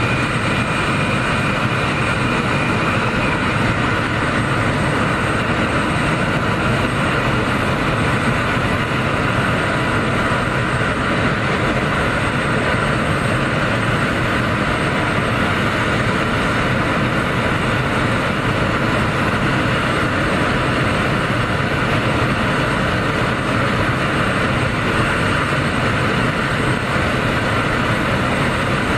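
Loud, steady jet noise from a parked Boeing 747, Air Force One, running on the ramp. A thin high tone fades out about three seconds in.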